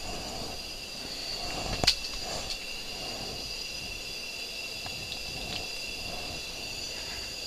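Hands handling a just-landed bluegill and the tackle: a sharp click about two seconds in and a few softer ticks and rustles, over a steady high-pitched whine.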